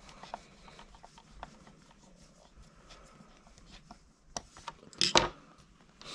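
Precision screwdriver turning a small screw through a wheel onto its hex on a 1/24-scale Axial SCX24 crawler: faint scraping, rubbing and small clicks. About five seconds in there are a few louder knocks.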